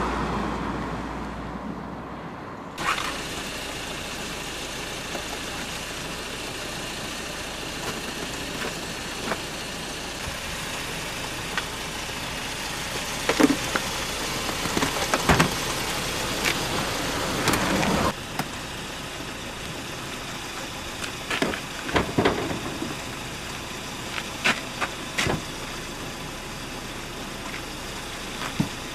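A vehicle engine idling under steady street noise, with scattered sharp clicks and knocks. A low rumble fills the first few seconds, then the sound changes abruptly.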